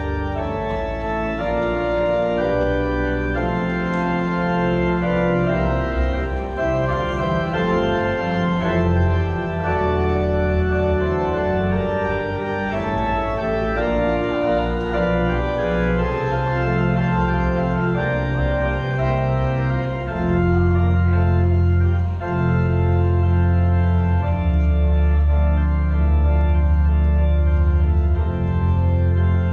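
Church organ playing a recessional: sustained chords that change every second or so over long-held deep bass notes.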